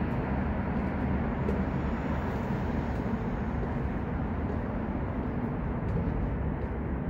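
Steady, low outdoor city rumble with no distinct events.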